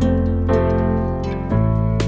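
Background music with plucked string notes.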